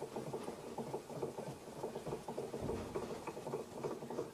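Quiet, rapid mechanical rattle and ticking from a vintage Karger manual lathe as the boring bar is wound back out of the collet chuck's bore after a cut.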